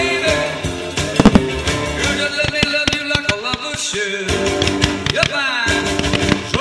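Pyromusical soundtrack music playing loudly with firework bangs over it, the loudest a close pair about a second in.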